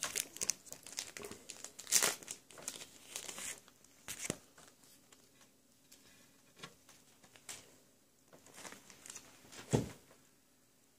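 Crinkling and rustling of plastic and foil wrapping as trading cards are handled and slipped into sleeves, in scattered short bursts that are busiest in the first few seconds, with a soft thump near the end.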